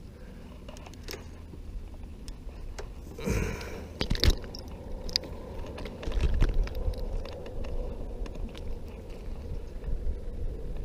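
Close handling noises as a freshly caught crappie is grabbed by the line and unhooked by hand: scattered clicks and scrapes, with a sharp knock about four seconds in.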